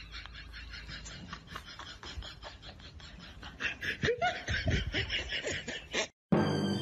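Quick, breathy snickering laughter in rapid short bursts, about five or six a second, with a lower voiced glide about four seconds in; it cuts off suddenly near the end and music begins.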